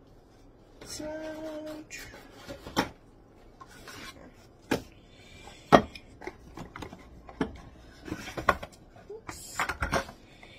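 Knocks, taps and rubbing as a tea box and other kitchen things are handled and set down on a wooden countertop, with one sharp knock near the middle and a quick cluster of taps near the end. A short steady hum about a second in.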